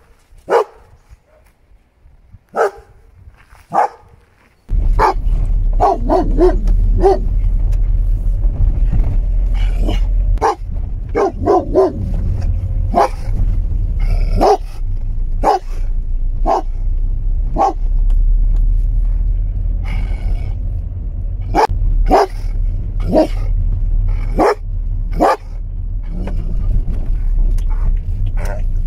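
Dog barking repeatedly in single sharp barks, roughly one a second. About five seconds in, a loud, steady low rumble starts suddenly and carries on under the barking.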